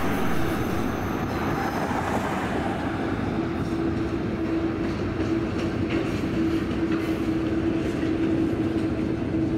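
Empty intermodal well cars and a bathtub coal gondola at the end of a freight train rolling past, with steady wheel-on-rail noise. A steady low whine joins the noise about three and a half seconds in.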